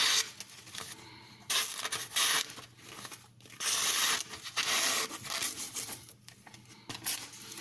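Steel knife blade scraping along a medium India (aluminium oxide) sharpening stone in several strokes of about a second each, with short pauses between. The edge is being brought close to the apex before a micro-bevel.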